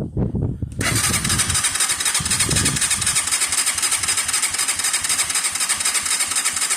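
Motorcycle engine being started: it turns over for under a second, then catches and runs steadily with a fast, even rattle.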